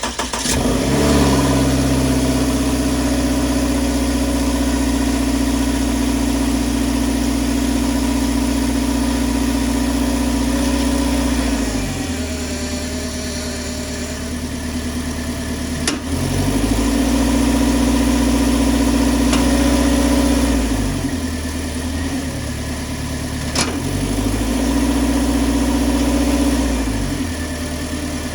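2020 Subaru Outback's flat-four engine running just after a cold start, with a steady grinding drone from its CVT transmission that the owner hears only in Drive or Reverse, not in Neutral. The sound drops and changes several times as the selector is moved, and there are two sharp clicks partway through.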